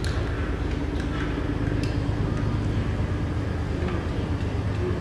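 Steady low machine hum with a few faint light clicks in the first two seconds.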